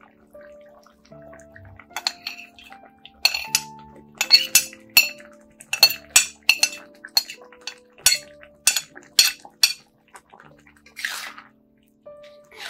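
Kitchenware knocking and clinking against a wok, about two sharp clinks a second, as sliced tomato, chilli and spring onion are tipped in. A brief scraping hiss comes near the end.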